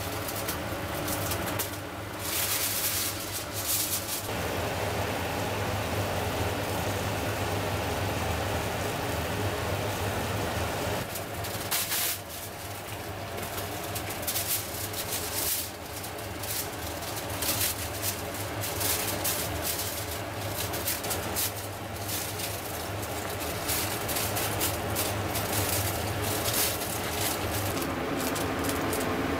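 Grouper pieces frying in a small pan of bubbling oil, sizzling with many small crackles over a steady low hum.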